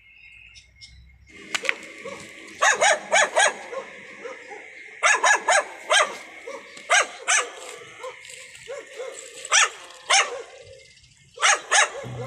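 A dog barking repeatedly, the barks coming in quick clusters of two to four, starting about a second in.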